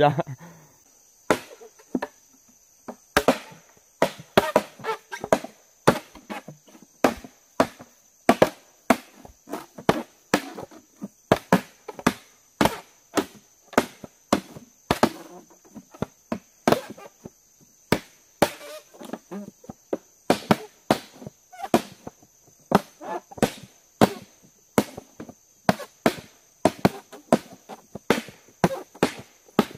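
Irregular sharp knocks of tools striking wood or bamboo, roughly two a second, with a steady high chirring of forest insects behind.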